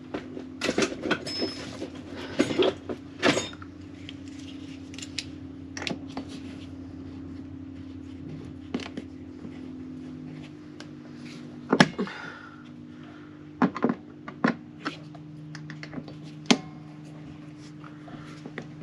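Hammer tapping on a nail punch to knock copper nails out of a wooden boat's frames: irregular sharp metal taps, some close together, with a steady low hum underneath.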